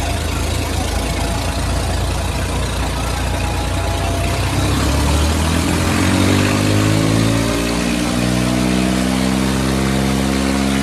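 Tractor engines of a Kubota 5501 and a New Holland 3600 working hard under heavy load in a tug-of-war pull. About five seconds in, one engine's pitch climbs and then holds steady and high.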